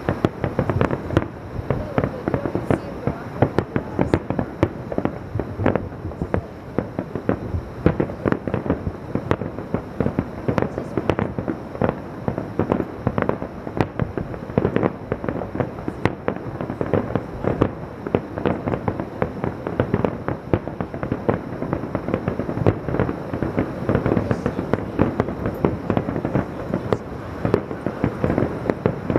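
Fireworks display: a dense, unbroken barrage of shell bursts and bangs, several a second, with crackle and echo between them.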